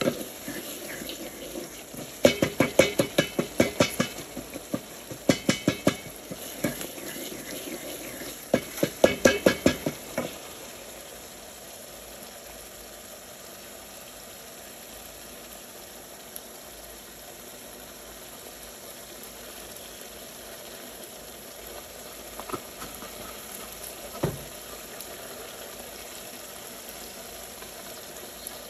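A metal utensil clatters rapidly against a cooking pot in three quick bursts during the first ten seconds. After that comes a steady sizzle of food cooking in the pot, with a couple of light knocks near the end.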